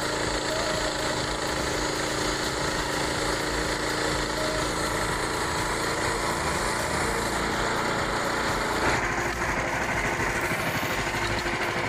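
Small gasoline engine of a portable band sawmill running steadily, its sound shifting about nine seconds in.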